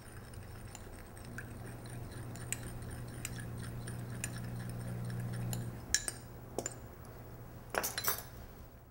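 A metal spoon stirring in a small glass bowl, ticking against the glass as sugar is dissolved into citrus seasoning. A few sharper clinks come in the last few seconds, and a low steady hum runs underneath.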